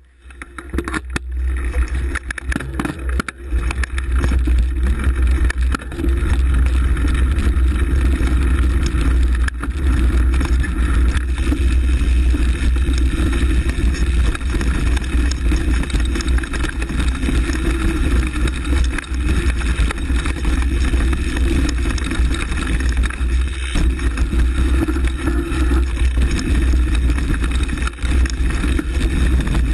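Mountain bike ridden along a forest dirt trail, heard from a camera mounted on the bike: a loud, steady low rumble of tyre and trail noise with many small knocks and rattles from the bumps. It builds up over the first couple of seconds as the bike gets going.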